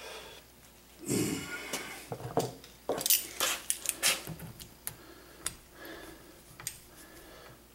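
Steel locking pliers handled and clamped onto a screw set in a plastic chainsaw handle-mount plug, to pull the plug out: an irregular run of metallic clicks, clinks and short scrapes.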